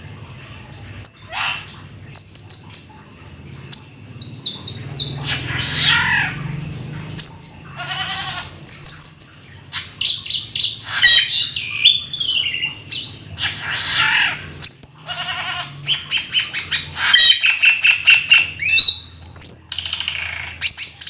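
Jalak keling, a starling, singing a long, varied song: quick whistles, rising and falling slurred notes and harsh chattering phrases in an unbroken stream. A faint low hum sits beneath it.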